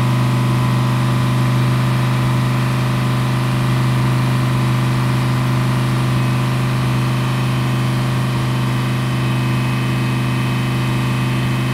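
Audi R8 LMS GT4 race car's V10 engine idling steadily while warming up, heard from inside the cockpit.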